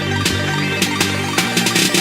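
Electronic intro music with a steady beat and sustained synth notes, building toward a heavy drum-and-bass drop.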